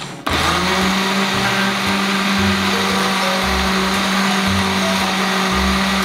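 Electric countertop blender motor starting abruptly about a third of a second in and then running at a steady, even pitch, blending sobia drink with Oreo cookies.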